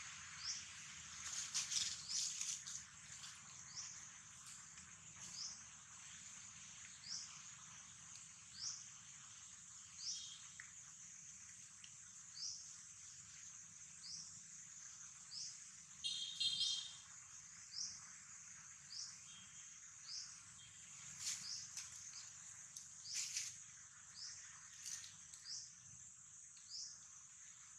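Faint outdoor ambience: a steady high-pitched drone with a short high chirp repeating about every one and a half seconds, and a few brief rustles or clicks, the loudest a cluster about sixteen seconds in.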